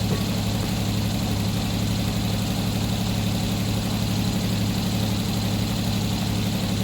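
An engine idling steadily with an even low throb.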